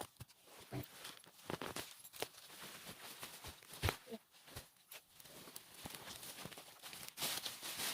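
A string of irregular knocks and scuffs, with rustling in between.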